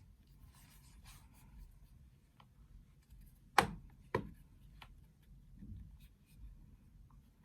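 Faint handling of a plastic phone gimbal and its case, with two sharp clicks about half a second apart midway through, the first louder.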